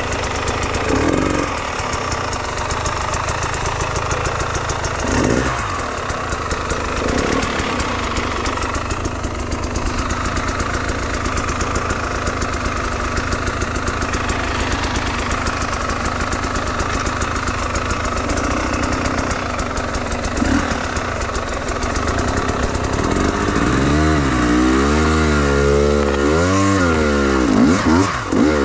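Enduro dirt bike's engine running under way. Over the last few seconds the revs rise and fall again and again.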